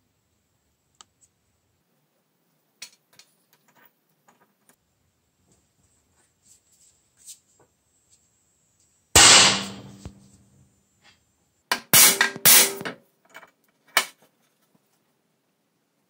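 Hammer blows on the steel plunger of a homemade hammer crimper, crimping a copper lug onto a pair of battery cables: one heavy ringing strike about nine seconds in, a quick run of several lighter strikes around twelve seconds, and a last strike at fourteen seconds. Before the blows, light clicks as the lug and cables are fitted into the crimper.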